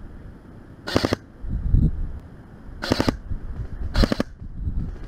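Airsoft gun firing three short, rapid bursts of a few shots each, about two seconds and then one second apart.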